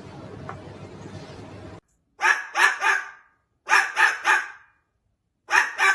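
A dog barking in quick runs of two or three barks, starting about two seconds in after a steady background hiss cuts off.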